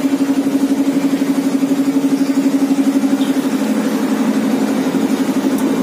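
A motor or engine running steadily: a strong, even hum with a fast, regular pulsing.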